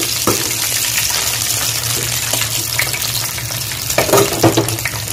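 Meat chops shallow-frying in hot oil in a pan: a steady sizzle with scattered crackles and pops, a few louder ones about four seconds in.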